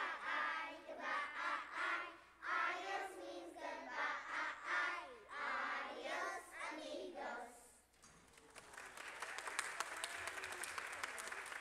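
A group of young children singing together. The song stops about eight seconds in and an audience breaks into applause.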